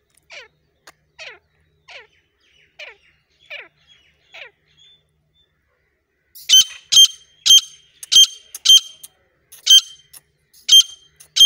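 Caged grey francolin calling: a run of faint repeated notes, each falling in pitch. From about six seconds in come loud, sharp, ringing high notes, about two a second.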